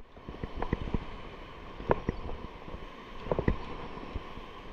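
Outdoor shoreline ambience: wind on the microphone with a steady low rush, broken by scattered light clicks and taps, a few of them sharper about two seconds in and twice more near three and a half seconds.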